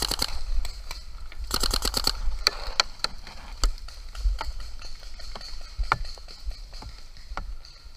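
Paintball marker firing rapid strings of shots, one just at the start and another about a second and a half in, each at roughly ten or more shots a second. Scattered single pops and snaps follow.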